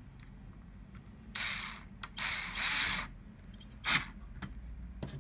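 Cordless power screwdriver running in two short bursts, driving Torx T15 screws that hold a DVR cooling fan to its metal bracket. A sharp click follows about four seconds in.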